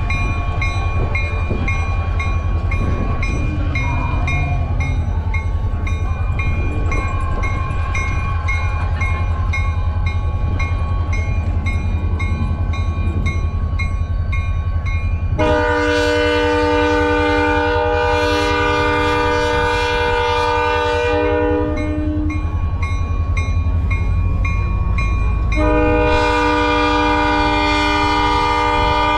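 EMD SD40 diesel locomotive rumbling as it approaches, with a bell ringing steadily. About 15 s in its multi-note air horn sounds one long blast of about six seconds, and a second long blast starts near the end: the crossing signal.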